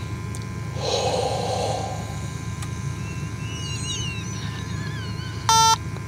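A breath is blown into the sampling probe of a handheld multi-gas monitor about a second in. Near the end the monitor starts its alarm with a loud electronic beep, set off by the exhaled breath pulling down its oxygen reading. A steady low engine idle hum runs underneath.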